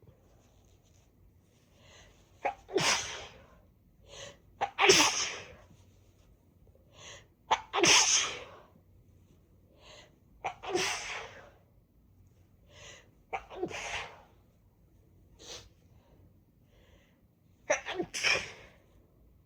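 A person sneezing repeatedly, about six sneezes a few seconds apart, each after a quick catching breath. The sneezes are set off by chhinkni sneezing snuff taken to clear a blocked nose.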